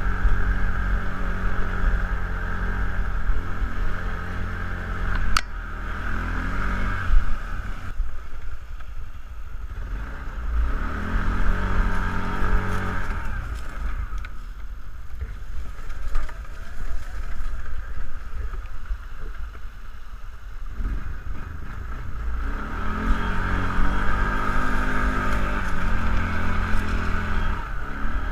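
Kawasaki ATV engine running as it is ridden, revs rising and falling and easing off for several seconds in the middle, with one sharp click about five seconds in.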